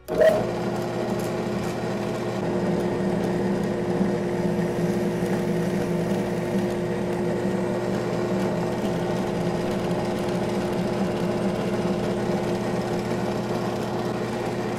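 WEN 4214 benchtop drill press switched on, its motor and spindle starting up suddenly and then running steadily at about 2000 rpm with no load, a constant hum.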